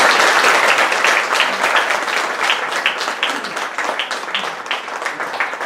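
Audience applauding, loudest at the start and slowly thinning out into scattered claps.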